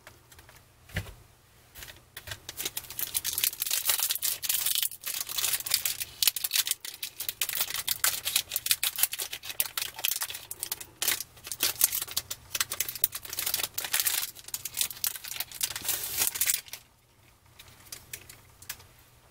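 Foil trading-card pack wrapper crinkling and crackling as it is torn open by hand: a dense run of sharp crackles that stops a few seconds before the end.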